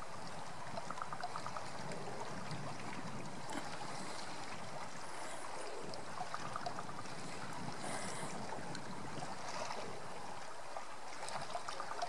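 Raven giving its odd call in a few short bursts of quick clicking, rattling notes, over a steady rushing background noise.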